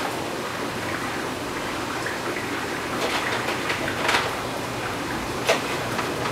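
Plastic filter pipes and suction-cup clips knocking and scraping against aquarium glass as they are positioned, a few short clicks with the sharpest about five and a half seconds in, over steady room noise.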